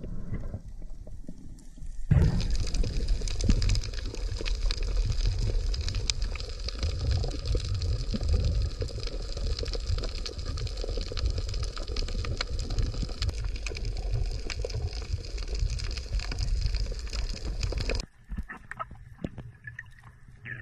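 Underwater sound on a coral reef: a dense crackle of fine clicks over a low rumble of moving water. It starts abruptly about two seconds in and cuts off near the end.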